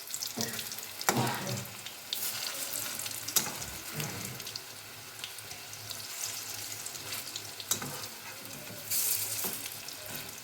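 Onion pakoras deep-frying in hot oil in a kadai, sizzling steadily, with scattered clicks and scrapes in the pan. The sizzle swells louder for a moment about nine seconds in.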